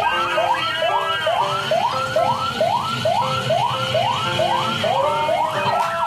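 A siren wailing in quick, repeated rising sweeps, about two a second, which change to a faster up-and-down pattern near the end.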